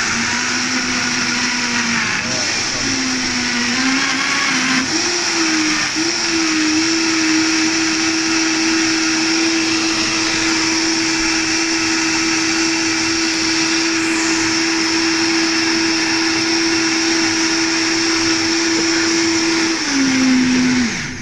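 Vitamix Vita-Prep 3 commercial blender running loud, blending fruit, carrot and ice cubes into juice. The motor pitch climbs in steps over the first several seconds, holds steady, then falls away as it is switched off near the end.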